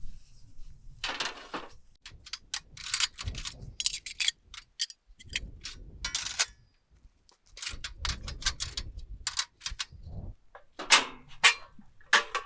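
Light-gauge steel framing profiles clinking and clanging as they are handled, an irregular series of sharp metallic hits. Wind rumbles on the microphone underneath.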